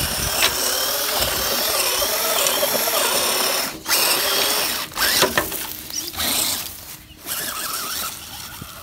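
Scale RC crawler truck's electric motor and gears whining as it drives, the pitch wavering with the throttle. The sound cuts out briefly a few times, near four, five and seven seconds in, and is quieter near the end.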